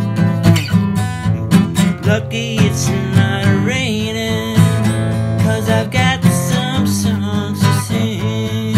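Instrumental stretch of an acoustic song: steadily strummed acoustic guitar over a bass line, with a wavering melody line on top.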